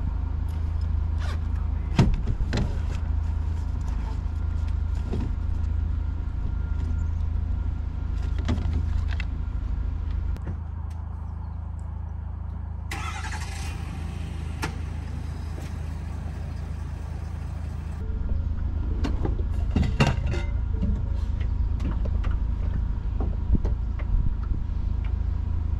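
A steady low engine hum, like a motor idling, under the whole stretch, softer for a while in the middle. Short clicks and knocks of gear being handled come on top of it.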